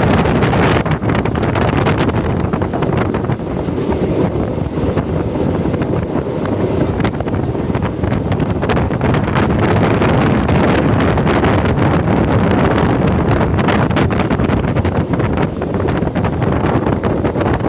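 A train running along the track, a steady loud rumble with wheel-on-rail clicks, and strong wind blowing on the microphone.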